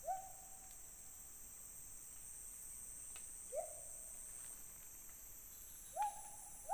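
Three short whistled calls from an unseen animal high in a tree, each sweeping up in pitch and briefly held, a few seconds apart, over a steady high drone of insects.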